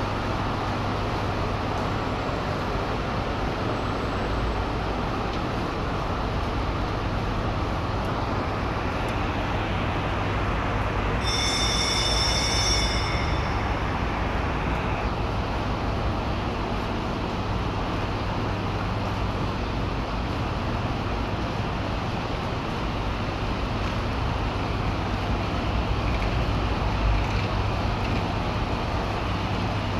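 Steady rain falling and running off, a constant hiss. About eleven seconds in, a short high-pitched tone sounds for a couple of seconds.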